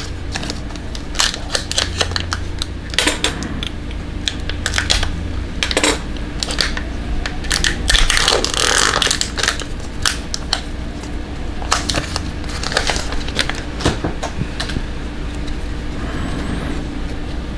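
Trading cards being handled and flipped through: a string of small clicks and ticks from the card stock, with a longer rustle about eight to nine seconds in.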